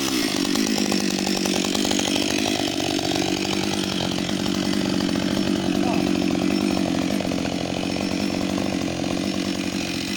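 Husqvarna 560 XP two-stroke chainsaw idling steadily, not cutting.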